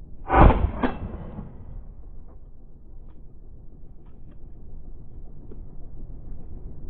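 A loud bang just after the start and a second, sharper knock about half a second later, then low steady background noise with a few faint clicks.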